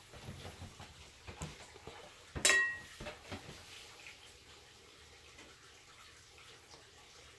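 Small knocks of kitchen handling, with one sharp, ringing clink of tableware about two and a half seconds in.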